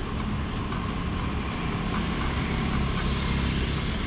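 Steady low rumble of city background noise, like distant traffic, swelling slightly near the end, with a few faint footstep taps.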